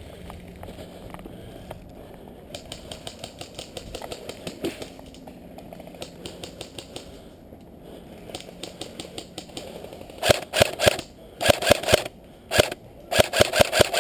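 Airsoft rifle firing several short bursts of rapid sharp shots close by, starting about ten seconds in. Fainter rapid clicking comes before it.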